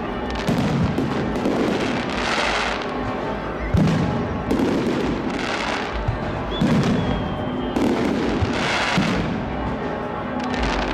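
Aerial firework shells bursting overhead: booms followed by crackling, recurring about every two seconds.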